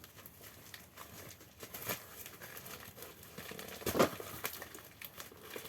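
Package wrapping being crinkled and pulled open by hand: scattered crackles, with a louder sharp crackle about two seconds in and the loudest about four seconds in.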